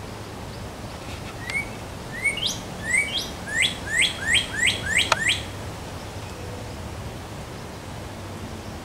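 Northern cardinal singing: one phrase of about eight rising, slurred whistles that come faster toward the end, over a steady background hiss. A single sharp click sounds near the end of the phrase.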